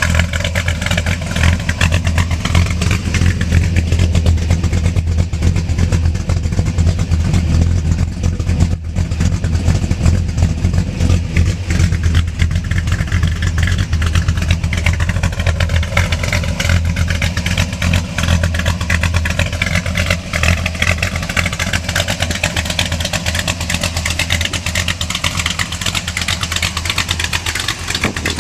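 1961 Ford Starliner's engine idling steadily, heard mainly through its exhaust tailpipes.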